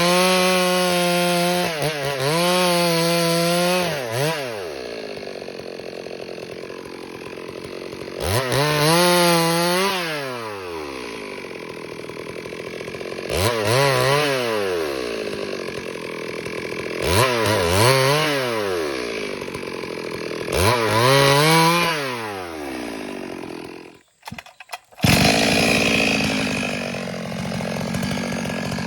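Stihl MS 382 two-stroke chainsaw revving up as it cuts into timber and dropping back to idle between cuts, about five times over. Near the end the sound cuts out for about a second and returns as a steadier run.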